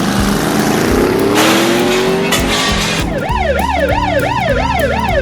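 Cartoon car-chase sound effects over background music: a car engine revving up in rising pitch with a tyre skid. Then, about three seconds in, a police siren starts wailing up and down, a little over twice a second.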